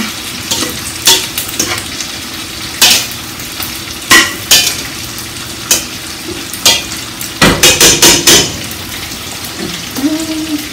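A spoon stirring food in a stainless steel stockpot, with irregular clanks and scrapes against the metal and a quick run of loud knocks about seven and a half seconds in, over the steady sizzle of sausage frying in a skillet.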